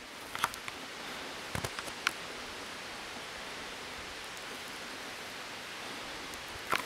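Steady rushing outdoor noise with no pitch, with a few short clicks and knocks in the first two seconds and one more near the end.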